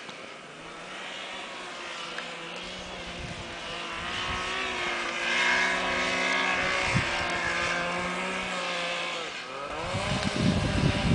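Yamaha snowmobile engine running at speed while the sled ploughs through deep powder, growing louder about four seconds in. Shortly before the end the engine's pitch drops and climbs again, with a louder low rumble.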